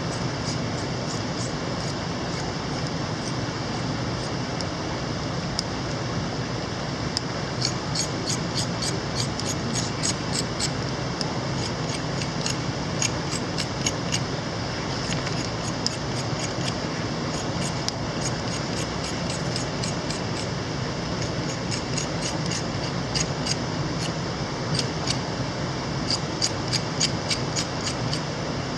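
Steady rushing of a mountain stream, with irregular clusters of sharp, high clicks and ticks over it.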